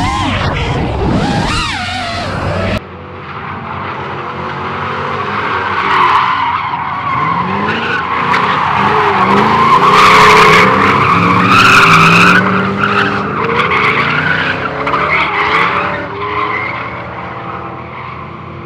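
Ford SN95 Mustang drift cars tandem drifting: engines revving up and down with tyres squealing. The sound changes abruptly about three seconds in and is loudest a little past halfway.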